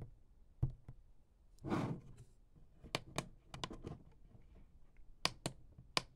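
Keypad buttons on a handheld borescope clicking as they are pressed one at a time to move through its settings menu, about ten separate clicks, some in quick pairs. There is a short breathy sound about two seconds in.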